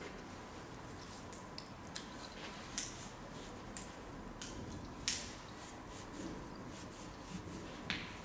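Scattered light clicks and taps of small metal hex keys being picked up, handled and fitted into the screws of a fiber laser cutting head's QBH connector, with a sharper click near the end as a key seats in a screw.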